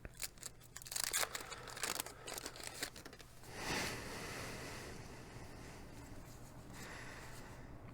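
Wax paper wrapper of a 1987 Donruss baseball card pack crinkling and tearing as the pack is opened: a run of crackles, then a longer tear about three and a half seconds in.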